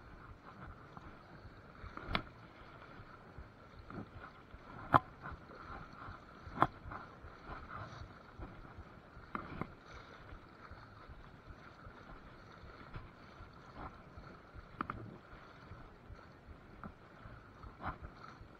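River water swishing around a wading angler's legs, with a sharp knock or splash every few seconds.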